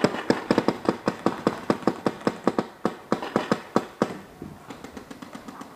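Paintball marker firing a rapid string of sharp pops, about five shots a second for roughly four seconds, then a few more spaced-out shots near the end.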